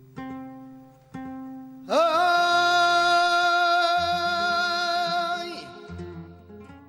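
Media granaína: a flamenco guitar plucks two single notes. About two seconds in, a male cantaor's voice slides up into one long held note with vibrato, lasting about three and a half seconds, then the guitar goes on with low notes.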